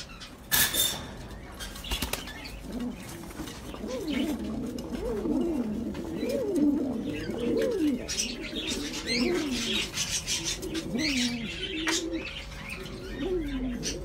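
Pigeons cooing over and over from about four seconds in, many low rising-and-falling coos overlapping, with some higher bird chirps in the middle. A short rustling burst comes about half a second in.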